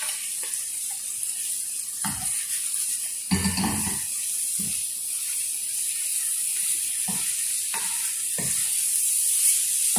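Shrimp frying in garlic butter in a nonstick pan over low heat with a steady sizzle. A wooden spatula stirs them, scraping and knocking against the pan in several short strokes.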